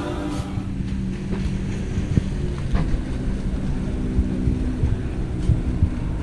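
Wind buffeting the microphone on a sailboat's bow: a steady low rumble, with a faint even hum underneath.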